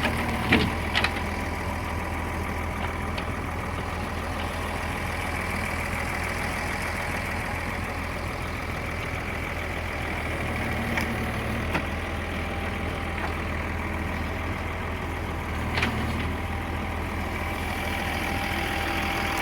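Diesel engine running steadily to power a hydraulic forestry crane loading timber, with a few short, sharp knocks scattered through it.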